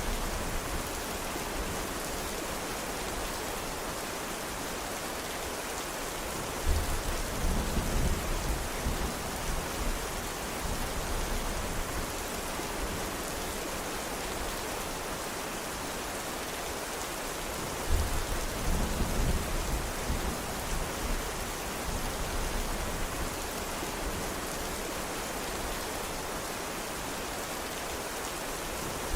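Steady rain, with two low rolls of thunder that start suddenly, about seven seconds in and again about eighteen seconds in.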